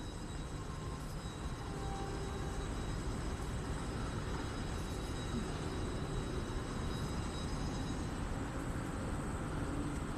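Steady low rumble with a hiss over it, and no distinct events.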